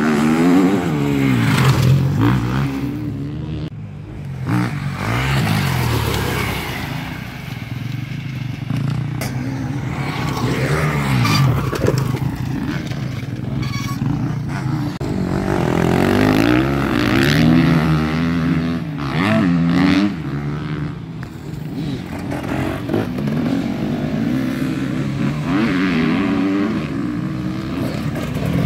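Dirt bike engines revving hard and dropping back as the bikes ride the track, the pitch rising and falling over and over as the riders open the throttle and change gear.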